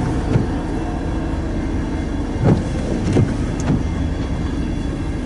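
Loaded crude oil tank cars of a freight train rolling past, a steady low rumble with a few sharp wheel knocks at uneven intervals.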